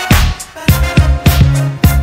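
Instrumental synth-funk music: a clap or snare hit just after the start, a run of electronic drum hits that drop in pitch, and a steady bass line beneath.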